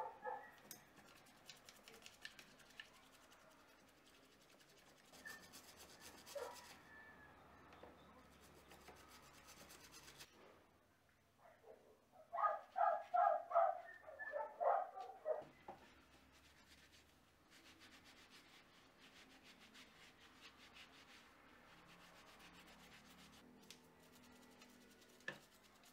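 Mountain bike parts such as brake arms and a derailleur being scrubbed with a small brush and a rag in a tub of soapy water: scratchy brushing and rubbing. About halfway through, a few seconds of loud squeaky pitched sounds stand out.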